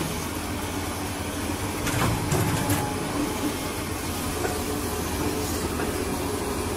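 Diesel engine of a crawler excavator running steadily, with a few short knocks about two seconds in.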